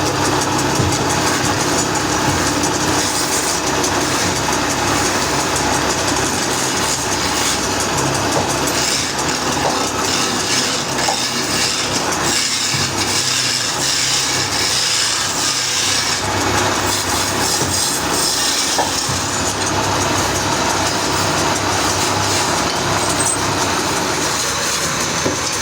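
Sawmill machinery running steadily with a loud, even mechanical noise and a low hum, turning brighter and hissier for several seconds in the middle.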